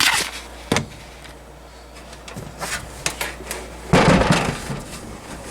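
Handling noises from an all-metal box fan being moved and turned over: a sharp knock under a second in, a few light taps, and a louder scraping rub about four seconds in.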